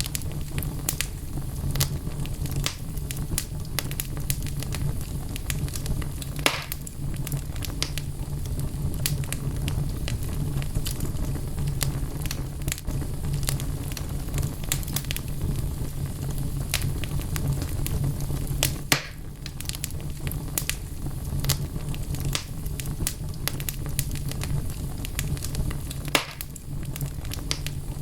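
Wood fire burning in a fireplace: a steady low rumble of flame with frequent sharp crackles and snaps of the burning logs, and a few louder pops.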